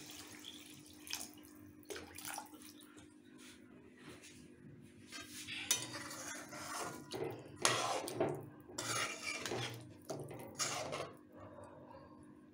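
Metal spatula scraping and clinking against a metal cooking pan while stirring chicken curry that has just been thinned with water, the liquid sloshing with the strokes. A faint steady hum runs underneath.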